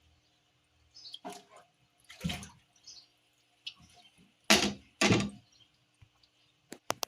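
Water splashing in a handful of short bursts, with the two loudest close together past the middle.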